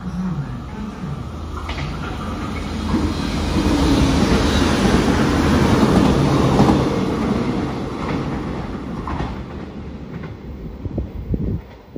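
CP suburban electric multiple unit passing through a station platform close by. Its wheels run on the rails with a noise that swells to its loudest about four to seven seconds in, then fades as the train moves away.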